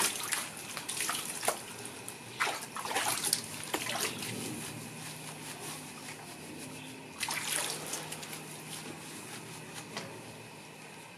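Water splashing and sloshing in a plastic tub as a dog standing in it is scrubbed and lathered by hand, in a few bursts that grow quieter toward the end.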